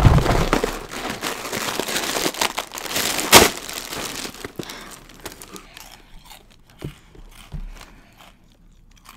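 Cardboard cereal box opened and its plastic inner bag crinkled and torn open, with one sharp loud rip a little over three seconds in. After that the rustling fades to scattered quieter clicks and crunches as a piece of cereal is eaten.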